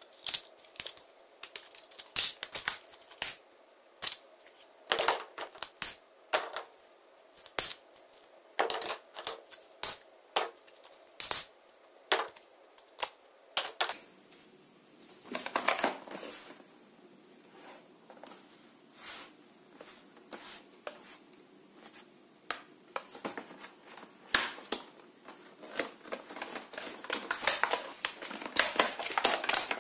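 Plastic toys being handled: irregular sharp clicks and taps, with a denser rustling patch about halfway through and quicker, louder clicking near the end.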